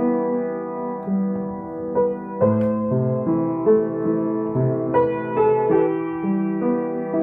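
Piano playing a gentle instrumental passage: held chords in the low and middle range with a melody above, the notes changing about every half second.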